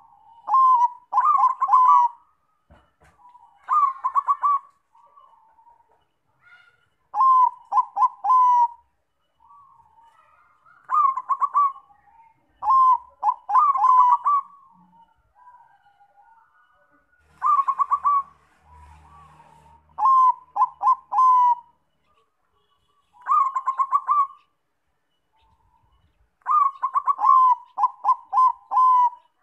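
Zebra dove of the Thai-bred Bangkok song type cooing its song. It gives about ten short phrases of quick, staccato coos, each phrase a second or two long, repeated every two to three seconds.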